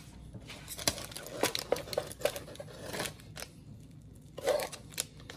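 A person eating jerk BBQ ribs close to the microphone: irregular clicks and smacks of chewing and pulling meat off the bone.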